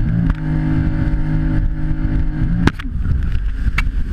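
Jet ski engine running at a steady pitch, until its tone drops out about two-thirds in after a sharp click, leaving a rough low rumble with a few more clicks.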